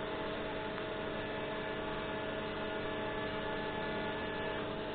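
TIG welding arc giving a steady electrical hum with a faint hiss, even and unchanging as the weld is laid.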